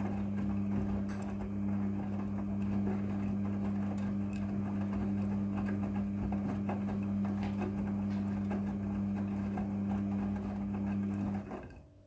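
Midea front-loading washing machine turning its drum in the wash tumble: a steady motor hum under the churning of wet clothes, cutting off suddenly near the end as the drum stops.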